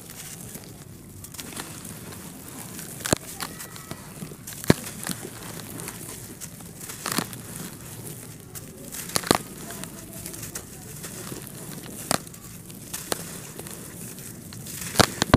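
Dry, pressed red-dirt bars crushed and crumbled by hand: a continuous gritty trickle of falling dirt, broken every two or three seconds by a sharp crack as a chunk snaps off.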